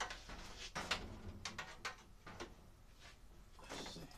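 Handling noises: a string of light knocks and clicks, the sharpest just under a second in, then a brief rustle near the end.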